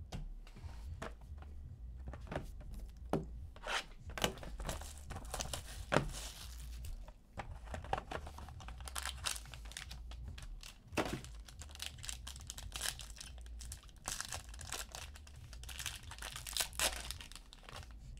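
Clear plastic wrap on a sealed trading-card box being torn off and crinkled by hand, with irregular clicks and knocks from the cardboard box and a hard plastic card holder being handled.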